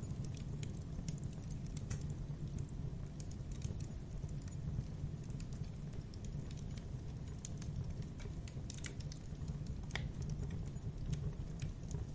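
Campfire burning: wood crackling and popping in irregular sharp snaps, a louder pop about ten seconds in, over a steady low rumble of the flames.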